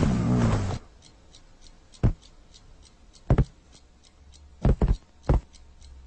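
Cartoon sound effects: a faint, fast ticking about four times a second, opened by a short rough, noisy rasp, with sharp taps about two seconds in, at three and a half, and a quick cluster near five seconds.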